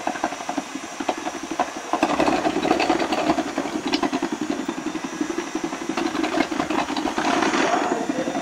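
KitchenAid stand mixer driving its 5KSM2FPA food processor attachment, dicing carrots through the 8 mm dicing kit. The motor runs steadily with a fast rattling chop, and it gets louder about two seconds in as the carrot is pushed down the feed tube onto the blade.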